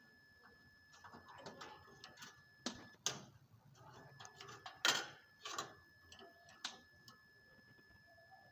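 Irregular clicks, knocks and scrapes from hand tools and metal parts being worked, the loudest knock about five seconds in.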